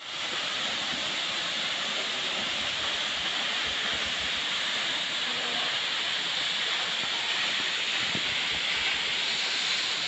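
Waterfall's steady rush of falling water, an even hiss with no change in strength.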